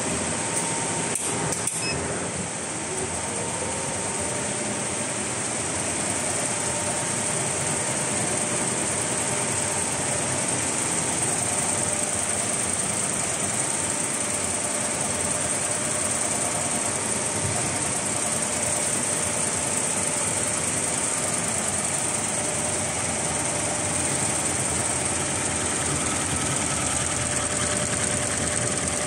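Richpeace computerized embroidery machines running steadily, a dense mechanical whir and clatter of stitching heads with a faint steady tone through it. A couple of sharp clicks come about a second in.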